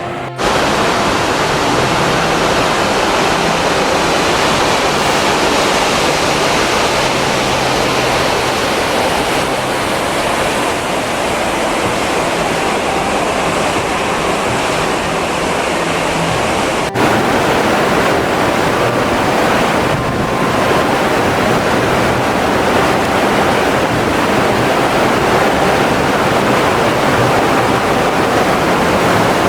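Loud, steady rush of a waterfall, with a brief break just past halfway.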